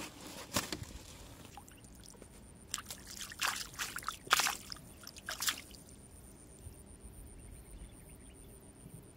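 Several short splashes and trickles of water at the pond's edge, most of them between about three and five and a half seconds in.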